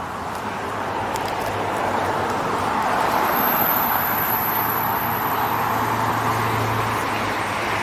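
Steady road traffic noise, swelling over the first couple of seconds and then holding, with a low hum and, in the middle, a faint high whine.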